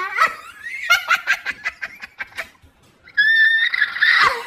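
A person laughing: a quick run of short ha-ha bursts, then a sustained high-pitched squeal of laughter near the end.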